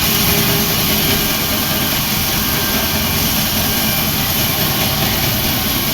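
Large wood bandsaw with a 7 cm blade running on a test run: a steady, loud machine noise with a hiss that holds even throughout.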